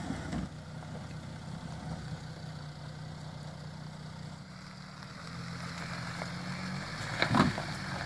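V6 turbo-diesel engine of a Jeep Grand Cherokee CRD running at low revs as it crawls down off a dirt mound, the engine note rising slightly about two-thirds of the way through. A loud knock sounds near the end.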